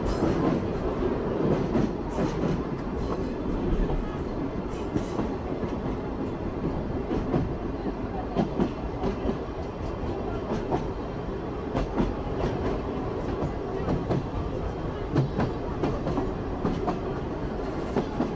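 Sagano Romantic Train's carriages running along the track, heard from on board: a steady rumble with wheels clicking irregularly over the rails.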